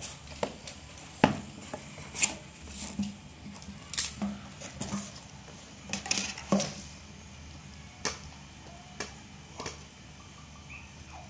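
Irregular knocks and taps of a cardboard smartphone box being handled, turned over and set down on a ceramic tile floor, the sharpest knock about a second in.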